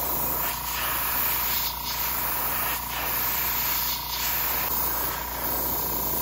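Airbrush spraying black paint onto a plastic fishing lure: a steady airy hiss that eases slightly about once a second.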